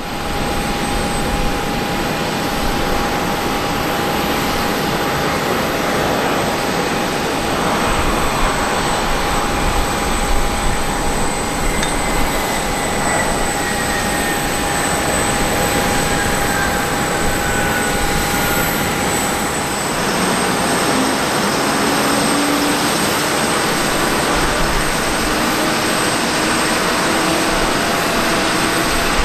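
Boeing 737-800's CFM56-7B turbofan engines running: a loud, steady jet roar with a constant high whine. A faint tone glides slowly downward midway through.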